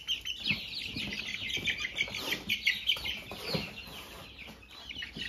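A brood of young chicks peeping all together: many short, high, overlapping chirps, with a few soft thumps from handling among them.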